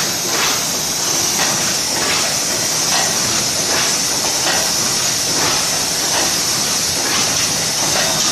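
Can-making machine forming hemmed and clinched (crimped-seam) cans: a steady high hiss with short metallic strokes repeating about twice a second.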